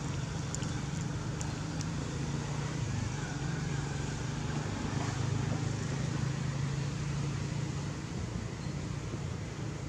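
Steady low engine drone of a motor vehicle running, with a faint haze of road noise over it.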